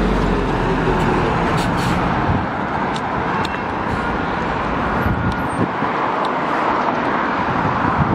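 Road traffic noise: a low vehicle engine hum that fades after about two seconds, then steady traffic rumble with a few light clicks.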